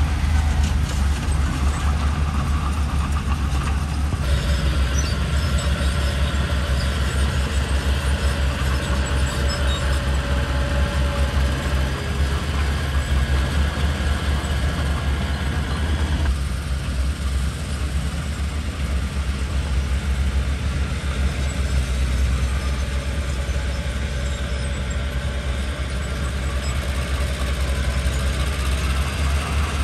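Mitsubishi BD2G bulldozer's diesel engine running steadily with a heavy low drone. A layer of higher-pitched machine noise over it jumps up about four seconds in and drops away abruptly about sixteen seconds in.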